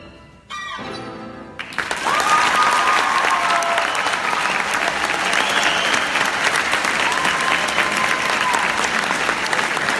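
A violin and piano end their piece on one last chord about half a second in, which rings briefly and dies away. Then, at about two seconds, the audience breaks into loud applause, with a few whistles over it.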